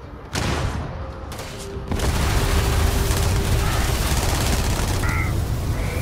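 Video game combat sounds: rapid gunfire and booms that burst in suddenly a moment after the start and get louder about two seconds in, then keep going as a dense barrage.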